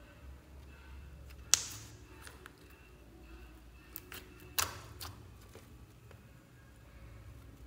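Bead-studded floam slime squeezed and stretched by fingers, giving sharp sticky pops and crackles, two loud ones about one and a half and four and a half seconds in, with smaller clicks between.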